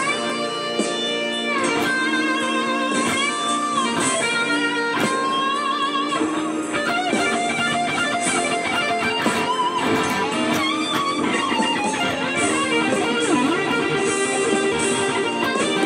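Telecaster-style electric guitar playing a melodic lead solo, with bent notes and vibrato over sustained lower notes.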